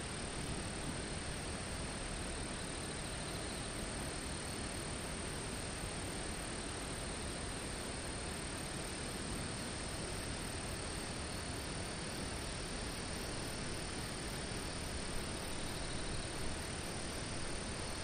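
Steady outdoor ambience: an even, unchanging hiss with a thin, high steady tone above it.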